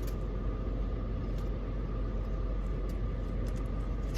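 Steady low rumble with a faint constant hum, and a few faint clicks over it.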